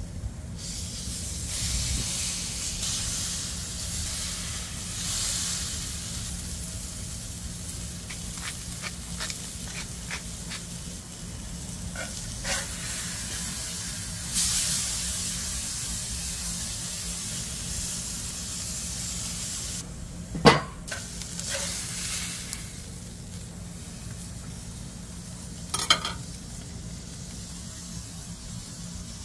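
Ground beef patty sizzling on minced garlic in a hot cast iron pan. The sizzle swells about halfway through as the patty is flipped with a metal spatula. Later there are two sharp clacks of the spatula against the pan.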